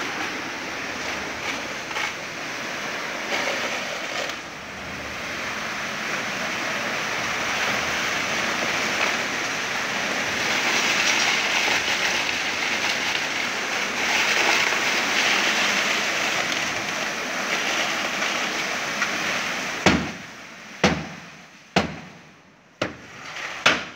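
Wet concrete rushing from a crane-hung concrete bucket down a flexible pour hose into parapet formwork, a steady rushing noise that swells midway and then dies away. Near the end come five sharp knocks about a second apart.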